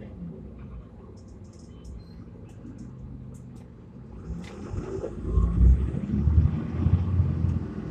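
Mitsubishi QKG-MP35FM city bus diesel running at a steady low hum, then a hiss about four seconds in. After that the engine rises into a loud low rumble as the bus accelerates away.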